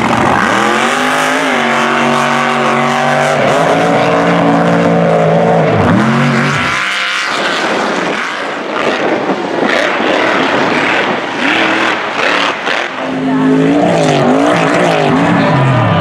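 Mega truck race engines at full throttle, revving up with the pitch climbing and stepping like gear changes, dropping off briefly about six seconds in. A rougher, noisier stretch follows. Near the end the engine pitch swings up and down as the throttle is worked over bumps.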